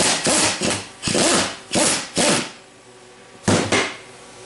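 Ratchet wrench with a thin-walled 3/8-inch 12-point socket turning out the center-section bolt of a Turbo-Hydramatic 400 transmission case, ratcheting in several short bursts, with a last one about three and a half seconds in.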